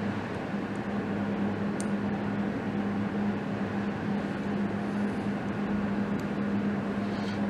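A steady machine hum over a constant rushing noise, with a few faint light clicks.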